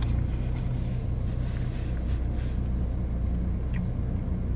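Steady low hum of a car engine idling, heard from inside the parked car's cabin, with a couple of faint clicks near the end.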